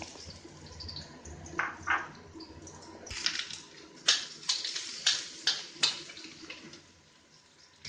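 Chopped garlic sizzling in hot oil in a stainless steel wok, with a metal spatula scraping and knocking against the pan about eight times. The sizzle fades and the stirring stops near the end.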